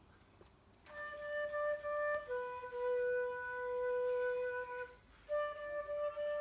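Slow hymn tune played on a single melody instrument. After about a second of near silence come long held notes, one of them held for about two and a half seconds. There is a short break about five seconds in, then the tune goes on.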